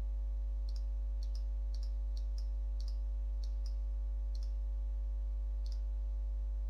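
Computer mouse clicking, about a dozen light clicks at uneven intervals, some in quick pairs, over a steady electrical mains hum.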